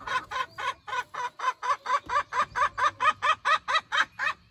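Chicken clucking in a fast, steady run of short calls, several a second.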